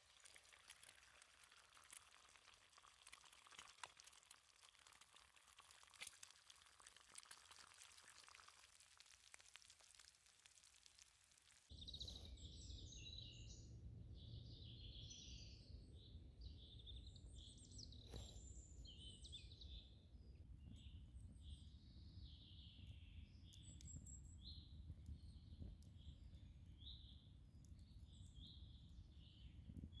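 Bacon sizzling and crackling in a frying pan. About twelve seconds in, this gives way suddenly to birds chirping and singing over a low steady rumble.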